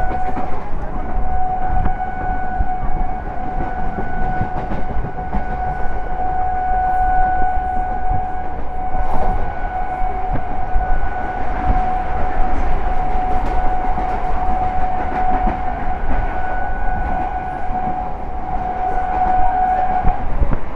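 Electric multiple unit train at speed sounding one long, steady horn blast that is held almost throughout and cuts off near the end, over the rumble and clatter of wheels on the track.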